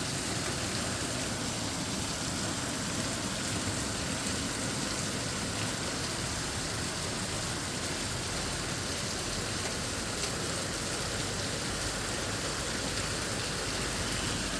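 Steady thunderstorm rain falling and pattering on surfaces, an even hiss that holds at one level throughout.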